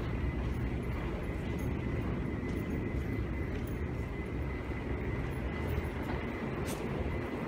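Steady low rumble of subway station ambience, with a faint, steady high-pitched whine running through it.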